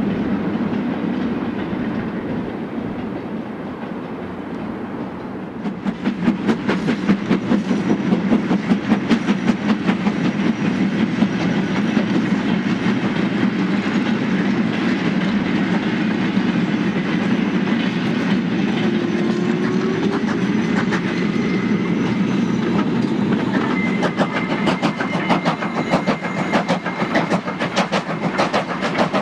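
Two steam-hauled freight trains, a BR 8F 2-8-0 and a 'Super D' 0-8-0, passing each other on double track. A steady rumble becomes a loud, rapid clickety-clack of wagon wheels over the rail joints about six seconds in as the wagons pass close, with a thin high whine joining near the end.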